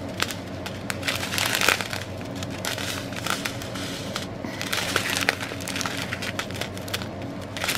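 Clear plastic bags of diamond-painting rhinestones crinkling and rustling as they are handled, with a steady patter of small crackles and clicks.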